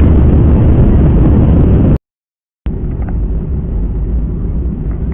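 Loud, steady airliner engine noise and rumble. It cuts to silence for a moment about two seconds in, then comes back a little quieter.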